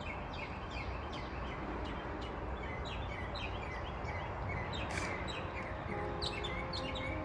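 Birds chirping repeatedly, many short downward-sliding chirps, over a steady low outdoor rumble. Quiet background music comes in near the end.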